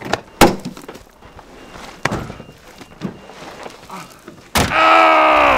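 A car door on a station wagon slams shut about half a second in, followed by a few lighter clicks. Near the end a loud steady tone sounds for about a second, dipping slightly in pitch before it stops.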